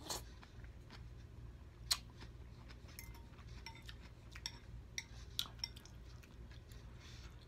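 Metal fork clinking and scraping against a glass bowl of noodle soup: scattered light clinks, the sharpest about two seconds in, over a low steady hum.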